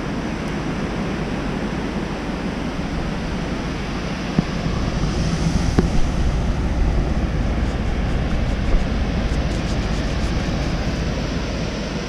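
Steady rush of ocean surf mixed with wind noise on the microphone; the low wind buffeting grows stronger about four and a half seconds in.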